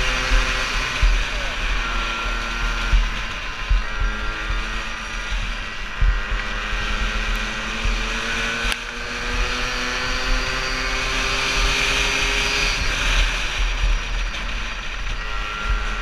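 Yamaha PW50's small two-stroke single-cylinder engine running under throttle, its pitch drifting up and down and rising slowly through the middle. Heavy wind rumble and bumps on the microphone.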